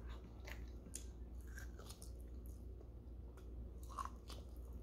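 Faint close-up eating sounds: a person biting and chewing barbecued pork ribs, with scattered short wet mouth clicks and smacks.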